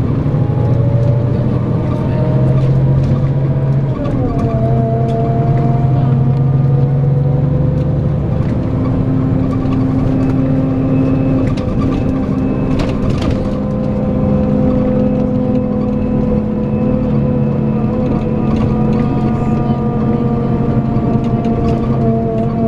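Scania K410EB6 coach's 13-litre straight-six diesel running under load, with a steady low engine note and a high vacuum-cleaner-like "hoover" whine over it. About four seconds in the whining tones drop in pitch, as at a gear change, then carry on steadily.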